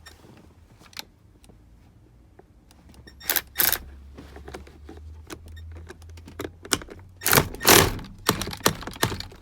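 A hand wrench tightening the steering-wheel nut on the column: irregular metallic clicks and knocks, sparse at first, with a cluster of louder ones from about seven to nine seconds in.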